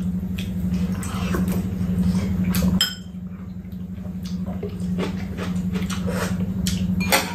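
Chopsticks and a spoon clicking and clinking against bowls and a metal serving tray as two people eat, with scattered light taps and one brief ringing clink about three seconds in, over a steady low hum.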